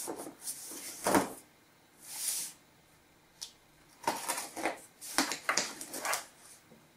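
A cardboard shipping box being handled and its packing tape slit with a knife. There is a knock of the box on the table about a second in and a brief rasp near two seconds. From about four seconds there is a quick run of short scrapes and clicks as the blade cuts along the taped seam.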